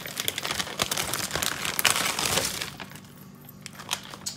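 Lightly breaded cauliflower wings pouring out of a crinkling plastic bag and rattling onto a baking sheet for the first two and a half seconds, then a few light clicks as the pieces are pushed around on the sheet by hand.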